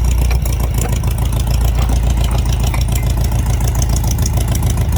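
Air-cooled VW flat-four engine of a VW trike idling steadily, freshly tuned with a rebuilt carburetor, new spark plugs, cap, rotor and wires, and the timing set.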